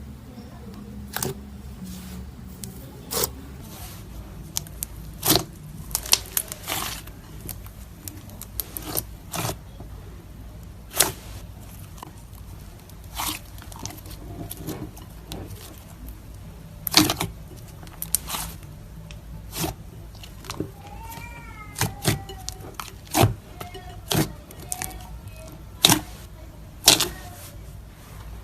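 Slime being squished and poked, making irregular sticky clicks and pops over a steady low hum, with a few faint wavering squeaky tones about three-quarters of the way through.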